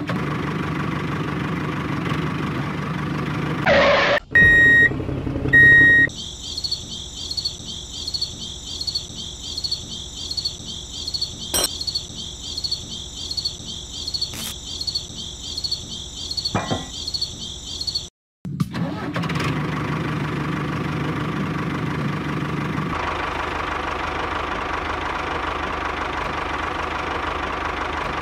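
Tractor engine sound running steadily. Two short high tones come about four seconds in. Then comes a long stretch of rhythmic clicking, about two a second, as a small hand-cranked winch is turned, before the steady engine sound comes back.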